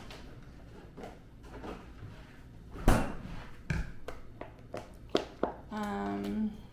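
Kitchen handling sounds as a bowl is topped with sauces: one sharp knock about three seconds in, a few light clicks and taps after it, and a short steady pitched tone near the end.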